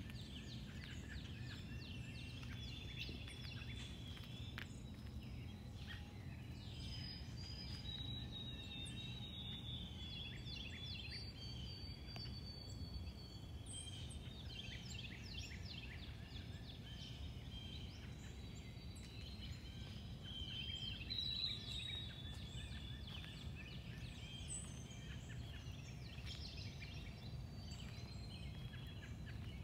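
Small songbirds chirping and singing, with many quick high chirps and a few longer whistled notes, over a steady low background rumble.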